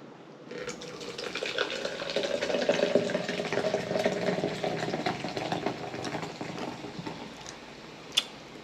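Fresca grapefruit soda being poured into a glass, a steady fizzing pour with a slight upward rise in pitch as the glass fills, then a short click near the end.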